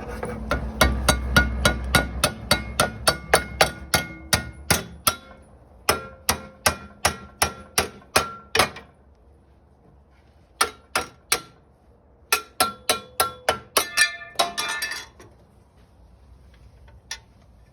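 Hammer blows on metal, in fast runs of about four strikes a second, each with a short ringing note. The runs come in several bursts with pauses between them and end in a brief rattle.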